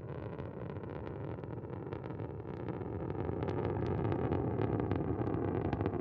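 Soyuz 2.1a rocket's first- and second-stage kerosene engines burning in ascent, heard from the ground: a deep steady rumble laced with dense crackling. It grows louder over the first few seconds.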